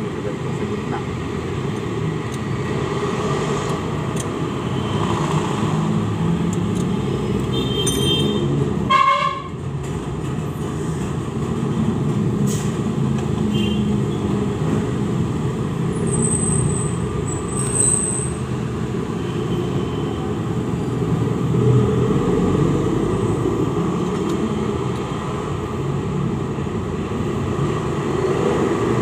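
Steady rumble of road traffic, with a short vehicle horn toot about nine seconds in.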